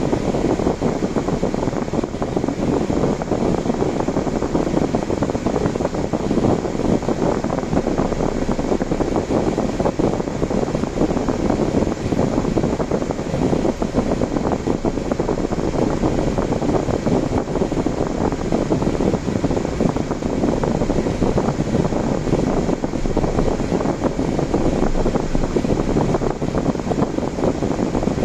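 Steady road and wind noise of a car on the move.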